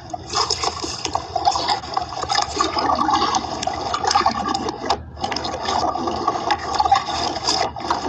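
Water splashing and sloshing around a small paddled boat, in irregular splashes with knocks and scrapes close to the microphone.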